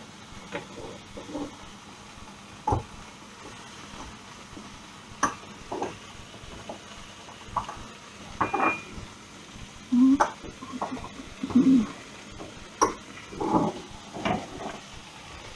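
Spice jars being closed up and handled, a string of separate clinks and knocks, over the faint steady sizzle of chicken breast frying in a pan.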